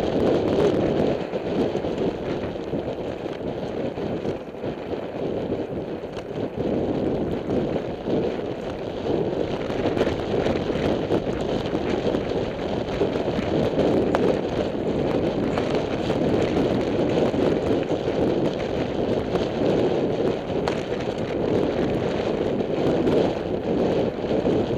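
Wind rushing over a helmet camera's microphone while a downhill mountain bike rolls fast down a dirt fire road. Under it, the tyres run over loose dirt and gravel, with scattered small clicks and rattles from the bike.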